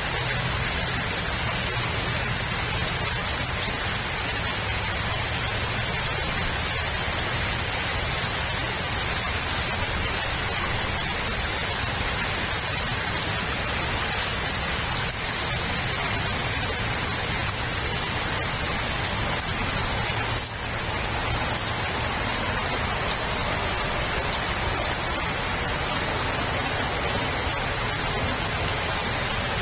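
Steady hiss of rain falling, with a faint low hum beneath and one sharp tick about two-thirds of the way through.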